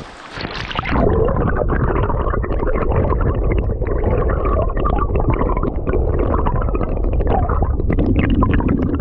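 Flowing stream water heard with the microphone underwater: a loud, dull rushing and gurgling with crackles through it, setting in about a second in as the camera goes under.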